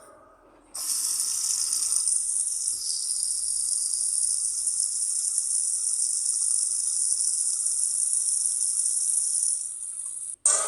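Steady hiss of running or spraying water that starts suddenly about a second in and cuts off abruptly near the end.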